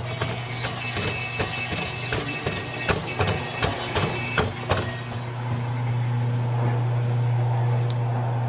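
A small motorized mechanism in a model oil-field diorama clicking rapidly and irregularly, with a faint whine, over a steady low hum. The clicking stops about five seconds in, leaving only the hum.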